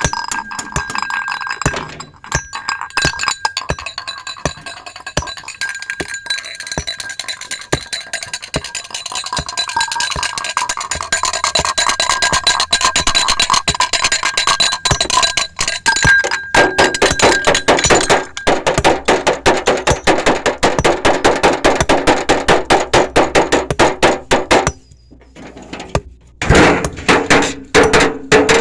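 Building sounds: clinking and knocking, then a fast, steady run of hammer strikes that breaks off for a moment near the end and starts again.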